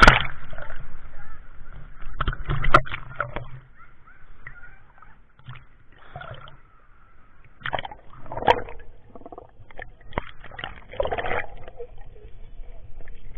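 Water splashing and sloshing in irregular bursts, with scattered knocks.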